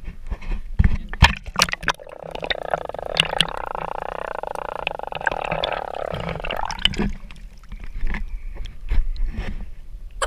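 A swimmer's action camera going under the sea: splashing at the surface, then several seconds of muffled underwater noise while the camera is submerged, then more splashing as it comes back up through the surface.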